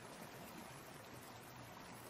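Faint, steady rush of falling water.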